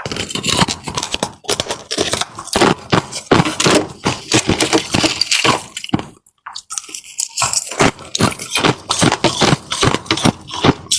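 Close, loud crunching and cracking of ice being bitten and chewed: many sharp, irregular crunches in quick succession, with a brief pause about six seconds in.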